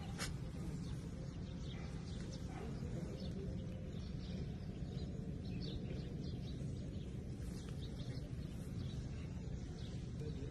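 Outdoor ambience: a steady low rumble, like wind on the microphone, with small birds chirping in short, scattered calls throughout.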